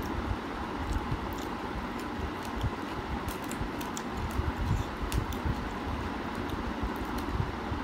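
Close-miked eating sounds: scattered sharp clicks and smacks of chewing, and fingers mixing rice on the plate, over a steady low background rumble.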